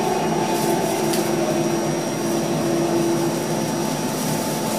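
Steady hum and rumble inside an NFTA Metro Rail light-rail car, with a steady mid-pitched tone that fades out about four seconds in.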